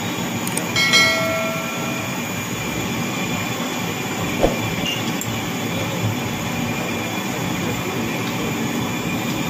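Steady, loud rushing background noise, with a short ringing metallic tone about a second in that fades away.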